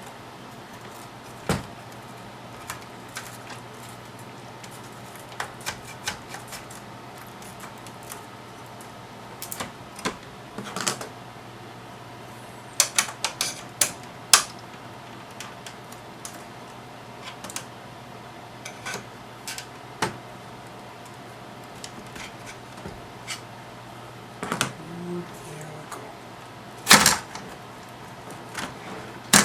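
Irregular clicks and clacks of tools and hands working on a test instrument's metal chassis and panel while the front panel is being taken off, with a sharper clatter about 13 s in and near the end. A steady low hum runs underneath.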